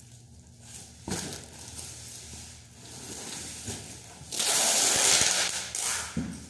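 A large plastic-wrapped cardboard box being handled during packing: a knock about a second in, then a loud scratchy noise lasting nearly two seconds, then a short thump near the end.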